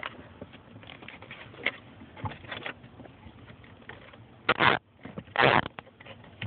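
Zip ties rustling and clicking as they are threaded around a car's gas pedal, then ratcheting as they are pulled tight: a short zip, and a longer one about a second later, past the middle.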